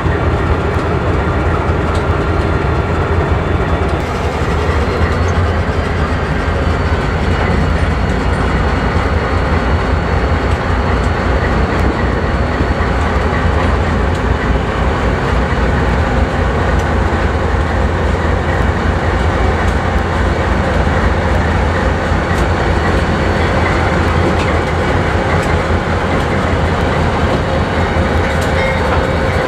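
Lead diesel locomotives of a freight train rolling past, Norfolk Southern and Pan Am Railways units, with a loud steady low engine rumble and wheels clicking over the rail joints.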